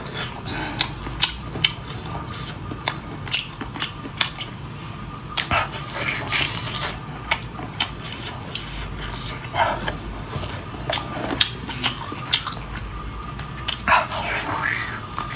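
Close-up eating sounds of a large braised squid being bitten, torn and chewed, with frequent short, wet mouth smacks and clicks at an irregular pace.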